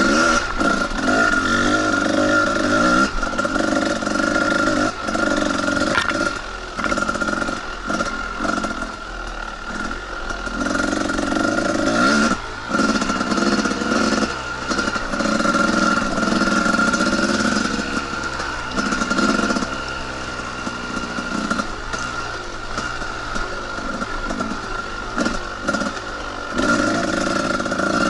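Two-stroke dirt bike engine running on a trail ride, revving up and down again and again as the throttle opens and closes, with scattered short knocks.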